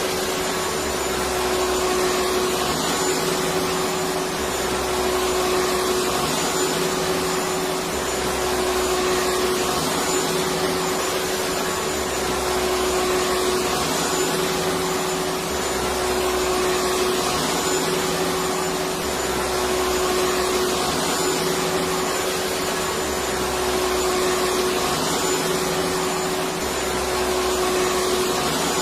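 Electric vacuum cleaner running continuously: a steady, even roar with a constant motor hum, swelling slightly in a regular cycle every four seconds or so.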